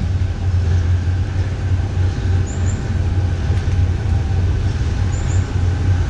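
Steady low engine rumble, as of an idling engine, with a faint high double chirp about every two and a half seconds.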